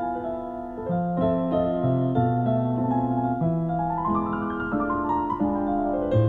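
Electronic keyboard playing chord accompaniment in the Azerbaijani Chahargah mode, with bass notes that change every second or so. About four seconds in, a quick run of notes climbs and then falls back down.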